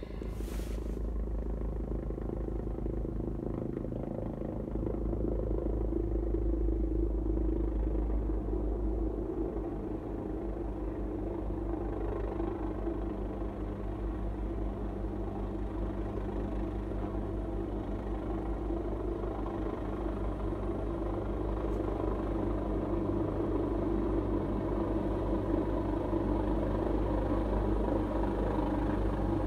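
Helicopter coming in low to land, a steady drone of rotor and turbine that grows louder as it nears overhead, over the low rumble of a car idling.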